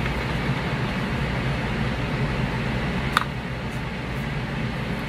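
Steady fan-like hum and hiss of room noise, with one small click about three seconds in and a couple of fainter ticks after it.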